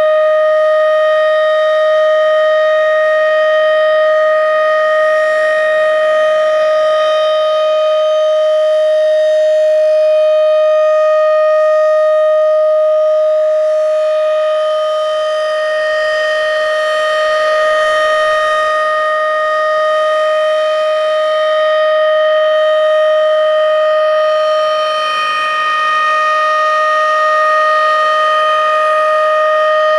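Federal Signal Thunderbeam RSH-10 electromechanical siren sounding a steady Full Alert tone at one held pitch. Its loudness swells and dips slowly as it sounds.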